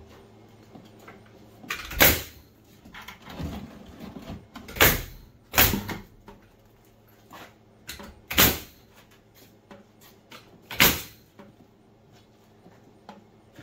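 Framing nail gun driving nails into 2x4 framing lumber: five sharp shots a few seconds apart, two of them in quick succession, with lighter knocks of wood being handled between them.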